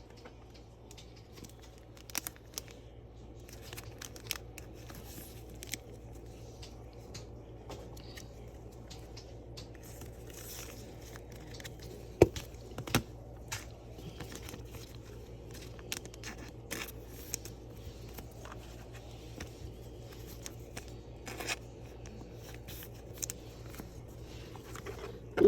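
Trading-card packaging being torn open and crinkled: quiet scattered crackling and rustling, with a couple of sharp clicks about halfway through.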